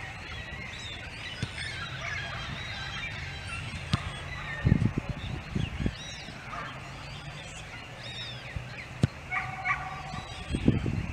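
Outdoor birdsong: many birds chirping, with a short harsh fowl call about nine seconds in. A football is kicked with a sharp thud about four seconds in and again just after nine seconds, and there are a few low bumps.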